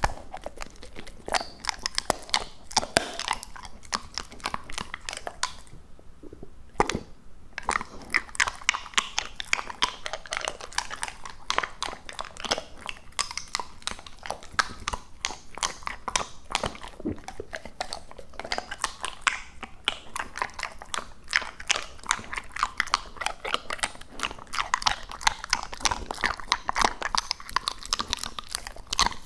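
Labrador Retriever chewing raw duck: wet, crunching bites in quick succession, with a short pause about six seconds in.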